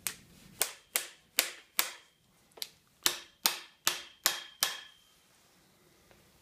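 Ball-peen hammer tapping on a steel tube drift, driving a seal washer in against the bearing in a John Deere B tractor's fan shaft housing. Sharp metallic taps about two and a half a second, in two runs of five with a short pause between. The later taps ring briefly.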